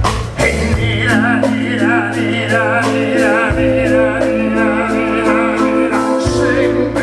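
Live band playing a slow lullaby, a man singing with vibrato over sustained chords and a steady bass line.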